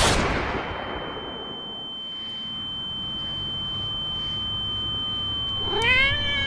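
The music cuts off and a wash of noise fades away over about a second, leaving a steady high-pitched ringing tone over quiet room sound. Near the end a domestic cat meows once, rising and then falling in pitch.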